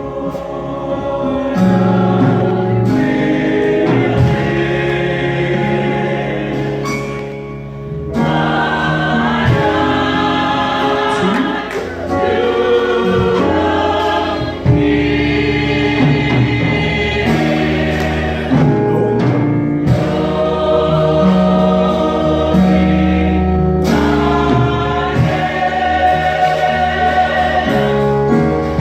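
Church choir singing a gospel song with instrumental backing, in phrases that break off and start again every few seconds.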